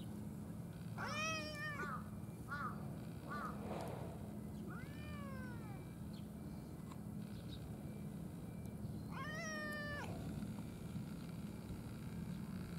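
Cat meowing five times: a long meow about a second in, two short ones, a falling meow around five seconds in, and another long meow near the end, over a steady low hum.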